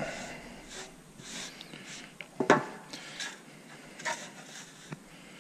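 Gloved hands handling a sealant tube and a thin aluminium cover on a workbench: light rustling and small clicks, with one sharp knock about two and a half seconds in.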